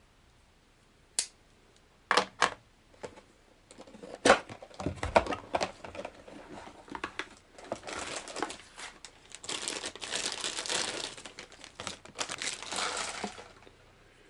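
Packaging of a boxed baitcasting reel being handled and opened: a few sharp clicks and taps in the first few seconds, then a long stretch of crinkling and rustling of packing material.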